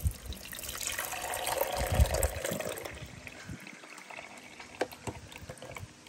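Water poured from a glass carafe into the water tank of a Sokany drip coffee maker, a splashing stream that tapers off after about two and a half seconds. A few light clicks follow near the end.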